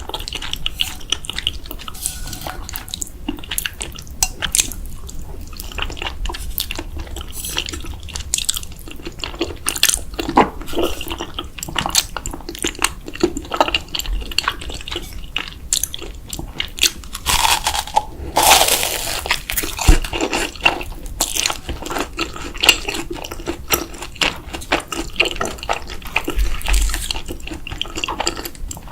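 Close-miked eating sounds: wet chewing of ramen noodles, with small clicks and taps of utensils against the bowl, and a louder wet burst about eighteen seconds in.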